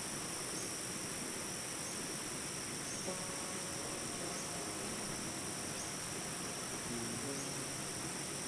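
Tropical forest insect chorus: crickets trilling steadily and high-pitched over a dense hiss. About three seconds in, faint soft held tones come in underneath.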